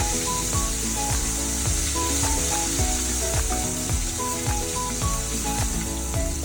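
Shrimp frying in a fair amount of hot oil, a steady sizzle, with background music of short melodic notes over a bass line.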